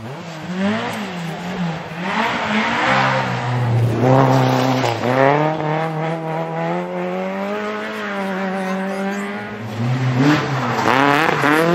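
Rally car engine revving hard under load. Its note climbs and drops sharply several times as it shifts and lifts, then holds a steadier pitch in the middle before climbing again near the end.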